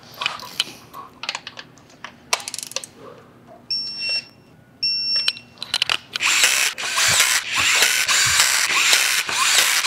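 Wrench and ratchet clicks from bolts being torqued on an engine, with two short electronic beeps about four and five seconds in. From about six seconds on, a power tool runs loudly with rapid clicking.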